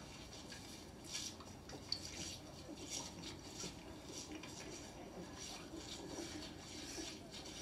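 Faint toothbrush scrubbing over teeth in short, irregular strokes, with one light click about two seconds in.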